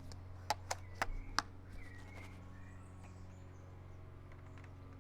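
Four quick, sharp clicks in about a second near the start, handling of the bolt-action SRS airsoft rifle with its HPA engine between chronograph shots, over a steady low hum.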